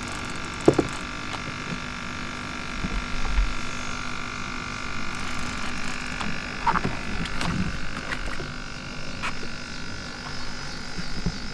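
A steady chorus of calling frogs, several pitches layered together, with a few scattered clicks and knocks.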